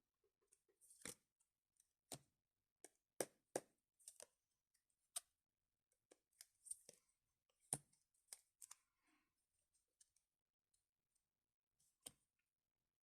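Faint, irregular sharp clicks and rustles of packaging being handled and opened during an unboxing, with no steady rhythm.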